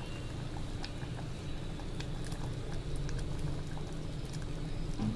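Drumstick kuzhambu (tamarind curry) bubbling at a boil in an aluminium pot, with a few faint clicks of a slotted steel ladle. A steady low hum runs underneath.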